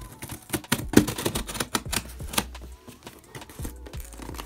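Scissor blade slitting the packing tape along the seam of a cardboard box, making a run of irregular scratchy clicks and snaps against the cardboard.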